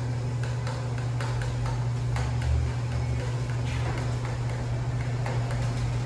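A utensil clicking and scraping irregularly against a frying pan as a thickening sauce is stirred, over a steady low hum.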